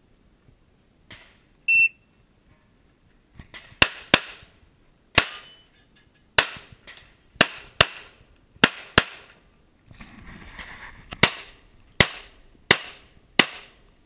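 A shot timer's short high start beep, then about a dozen pistol shots over some ten seconds, several in quick pairs, each with a ringing echo and a short break about two-thirds through.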